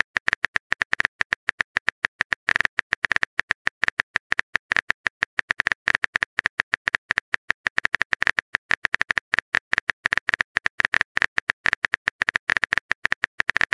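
Keyboard typing sound effect of a texting app: a rapid, steady run of short clicks, several a second, one per letter as a message is typed out.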